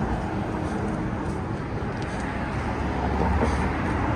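Steady street traffic noise, with a low rumble swelling about three seconds in.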